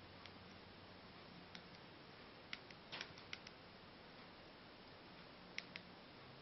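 Remote-control buttons clicking as the menu is stepped through: a dozen or so light clicks, many in quick pairs, bunched about three seconds in, with a last pair near the end, over near silence.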